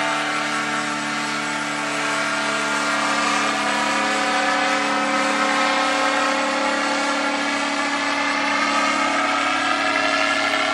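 Powered parachute's engine and propeller running steadily in flight overhead, a continuous drone whose pitch drifts slightly.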